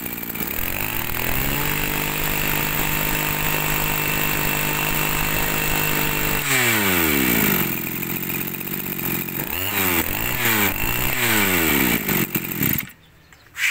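Mitsubishi TB 20 cc two-stroke brush-cutter engine running: it revs up about a second in and holds high revs, drops back to idle about halfway through, is blipped twice with the throttle, then stops near the end.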